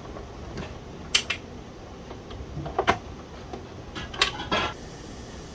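Sharp clicks and taps of a screwdriver and screws against the plastic case of a Commodore 1571 floppy disk drive as its case screws are driven back in: single clicks about a second and three seconds in, then two close together near the end.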